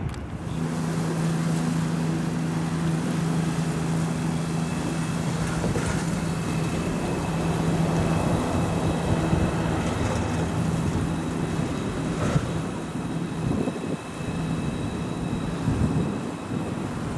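A small motorboat's engine running with a steady low hum as it passes on the river below, fading out about three-quarters of the way through. From about the middle, an ICE train runs along the elevated railway viaduct, adding a faint high whine over the steady rolling noise.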